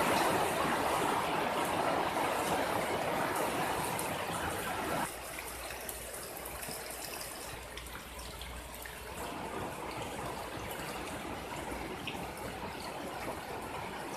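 Heavy typhoon rain pouring steadily on foliage and ground. It drops abruptly about five seconds in and goes on softer, with a low rumble underneath.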